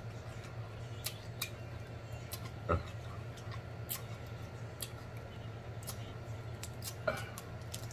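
Scattered sharp clicks and crackles of a snow crab leg's shell being picked and pulled apart by hands in plastic gloves, over a steady low hum.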